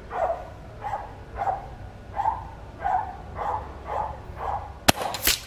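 A dog barking repeatedly, about two barks a second. Near the end, a single sharp shot from a Gamo HPA MI IGT .22 gas-piston break-barrel air rifle, followed a moment later by a second sharp crack.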